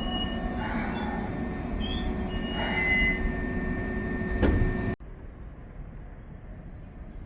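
Electric train rumbling past on the rails with high steady wheel squeal, a sharp knock about four and a half seconds in. About five seconds in the sound cuts off abruptly to a much quieter background.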